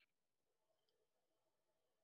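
Near silence on a video call, with the answering speaker's microphone muted.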